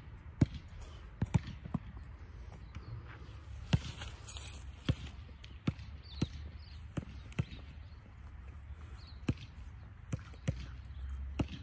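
A basketball bouncing on an outdoor asphalt court: about fifteen sharp, irregularly spaced thuds over a low background rumble.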